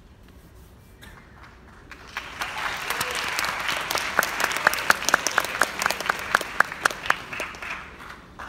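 Audience applauding, swelling about two seconds in and dying away near the end. Through the middle one pair of hands claps close by and loud, about four claps a second.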